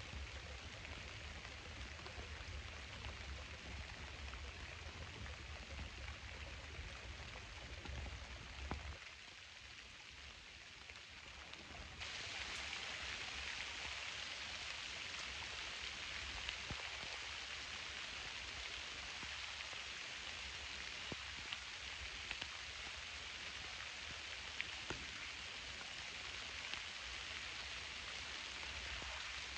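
Steady rain falling on a pond, with scattered small drop ticks; it gets louder and brighter about twelve seconds in.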